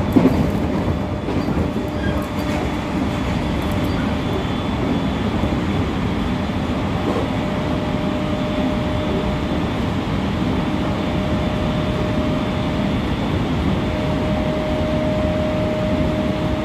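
Cabin running sound of a JR East 701 series 1500-subseries electric motor car at speed: a steady wheel-on-rail rumble with steady humming tones, the higher one growing louder near the end. A brief bump right at the start.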